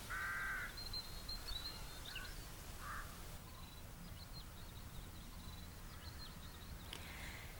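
Faint outdoor field ambience with birds calling: one short harsh call right at the start, a couple of fainter calls a few seconds in, and thin high chirps of small birds scattered throughout.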